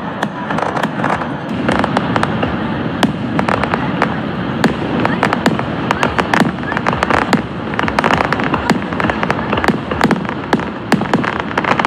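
Aerial fireworks bursting and crackling, with many sharp pops in quick, irregular succession throughout.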